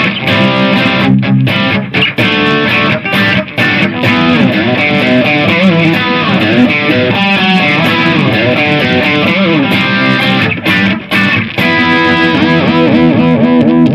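Electric guitar played through the Lekato Tank G Black pedal's Marshall JCM 800 amp model with distortion: chopped rhythm chords with short stops, then string bends and vibrato in the middle, and held chords near the end.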